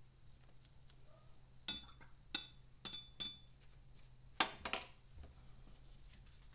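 A paintbrush clinks four times against a hard container, each clink quick and ringing. About a second later come two louder knocks.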